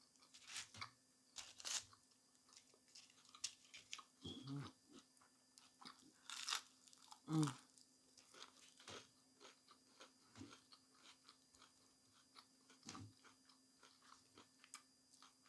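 Close-up eating: bites into a bacon cheeseburger and battered onion rings, then chewing, heard as scattered small crunches and wet mouth clicks. A faint steady hum runs underneath.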